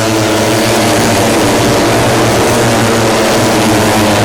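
Several 150cc four-stroke underbone racing motorcycles running loud at once, their engine notes overlapping in a steady din.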